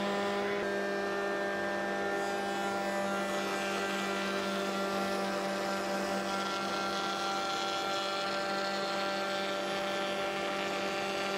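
Table-mounted router running steadily at full speed with a bearing-guided rabbeting bit, a constant pitched hum, while a spotted gum board is fed past the bit to cut a rebate.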